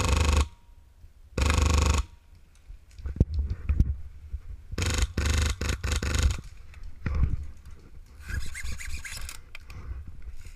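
Airsoft electric rifle firing bursts: one ends about half a second in, another follows about a second and a half in, and a string of bursts comes around five to six seconds in. Between them there is scraping and rustling of handling, all muffled by a waterproof camera case.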